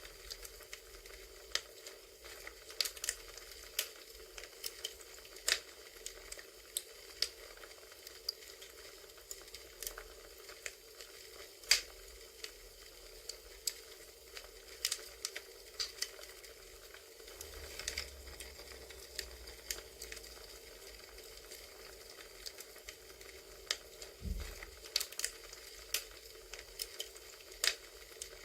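Crackling campfire recording: irregular sharp pops and crackles over a soft steady hiss, with one low thud late on.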